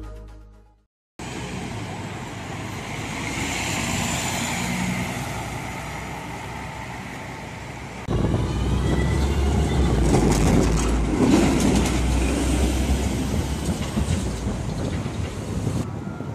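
Music fades out at the start, then street traffic noise. From about 8 s in, a De Lijn tram passes close by with a loud low rumble, and its steel wheels clatter over the rail joints and points for a second or two.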